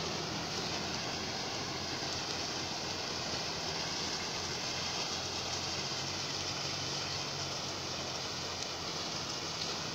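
Sugarcane harvester and cane truck running together at steady engine speed while the harvester's elevator loads cut cane into the truck's trailer, a constant mechanical drone with a steady hiss over it.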